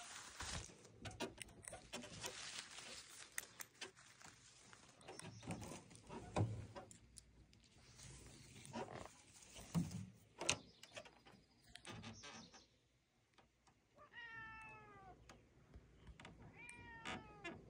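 Domestic cat meowing twice in the last few seconds, each call falling in pitch. Before the meows there are scattered clicks and knocks.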